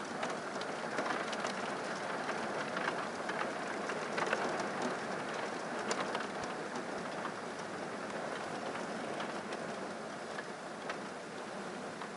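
Rain falling steadily, with many sharp single drop hits on a nearby surface. It swells a little about four seconds in.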